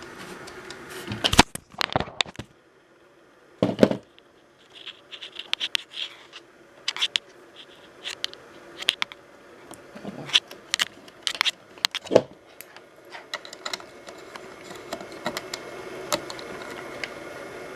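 Irregular clicks and knocks of switches and buttons being worked on a Sony Betacam SP camera while setting its time code, a few louder knocks among them, over a faint steady hum.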